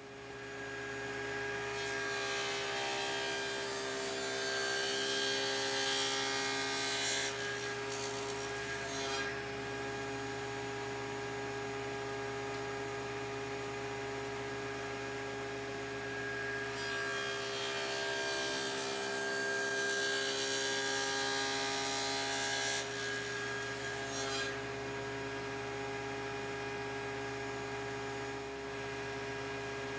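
Table saw running steadily with a constant humming tone as a walnut board is pushed through on a miter gauge to cut notches. The blade bites into the wood twice, from about two to nine seconds in and again from about seventeen to twenty-four seconds in, each cut adding a rough, louder cutting noise over the motor.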